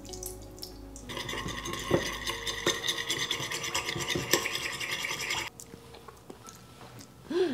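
Honey, mustard and lemon sauce being stirred briskly with a utensil in its dish: rapid scraping strokes that begin about a second in and stop suddenly about five and a half seconds in.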